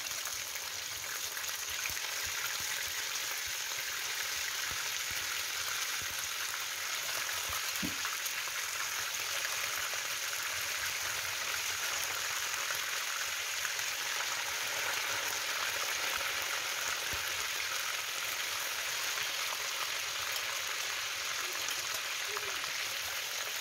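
Pieces of hake frying in hot oil in a nonstick pan: a steady, even sizzle.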